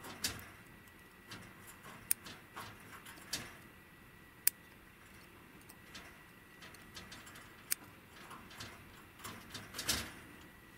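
Small scissors snipping a matted tuft of chinchilla fur held in a steel comb: sharp, irregular clicks scattered through several seconds, with a cluster of them near the end.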